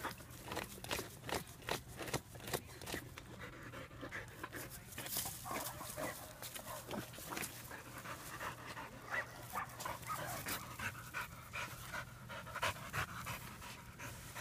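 Dog panting and sniffing hard in quick, irregular breaths, its nose pushed down into a gap between rocks.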